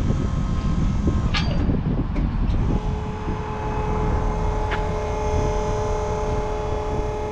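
Six-wheel Nissan Navara recovery truck's diesel engine running at idle, with a few light clicks and a steady whine that sets in about three seconds in.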